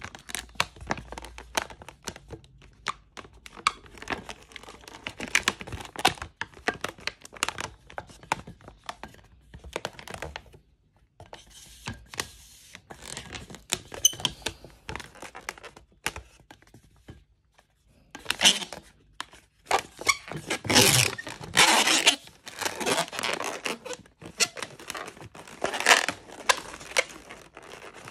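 Inflated latex modelling balloons being twisted, bent and squeezed by hand: a run of rubbery squeaks, creaks and rubs with short pauses, densest and loudest for a few seconds in the last third.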